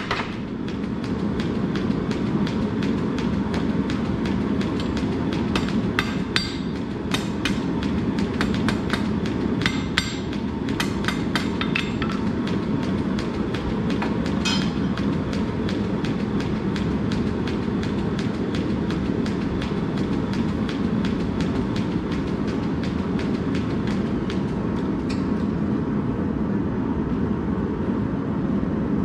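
Steady low mechanical drone of the mechanical power hammer's motor and flywheel running idle once the hammer has stopped striking. Scattered sharp metal clinks and taps come from about six to fifteen seconds in.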